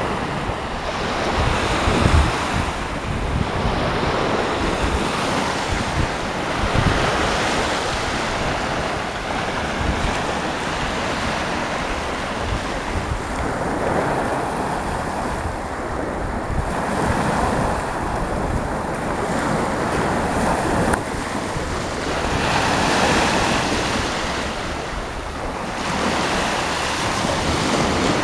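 Sea waves washing onto the shore, rising and falling every few seconds, with wind buffeting the microphone in low rumbling gusts.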